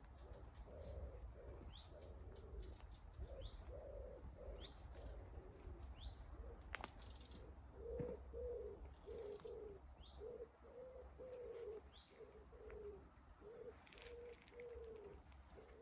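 Wood pigeon cooing in repeated low phrases, steadiest in the second half. A smaller bird gives short rising chirps at intervals over it.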